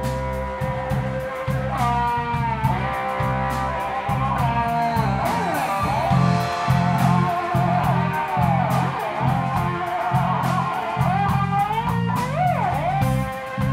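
Live blues-rock trio: a Stratocaster-style electric guitar plays a solo line with notes bent and sliding in pitch, over bass guitar and drums with a steady cymbal beat.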